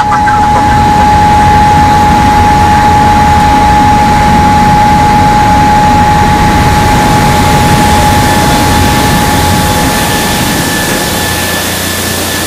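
Machinery in a recycled-cardboard mill running: a loud, steady hum and rushing noise with a steady whine that fades out about nine seconds in.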